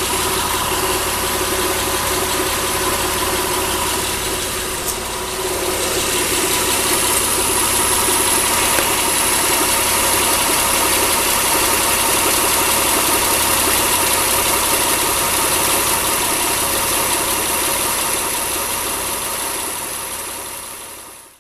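Mitsubishi Endeavor's 3.8 L V6 (6G75) engine running at idle. It gets a little louder about six seconds in and fades out near the end.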